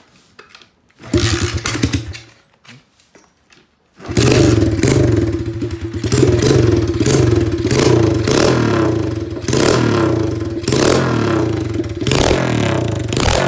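SSR 125 pit bike's single-cylinder four-stroke, straight-piped with no muffler, being started. It fires briefly about a second in and dies, then catches about four seconds in and keeps running loud, with a fast, even pulsing from the open exhaust.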